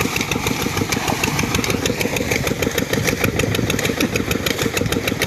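Water gushing from a tubewell pipe into a concrete tank, over an engine running steadily with a fast, even beat, most likely the engine that drives the pump.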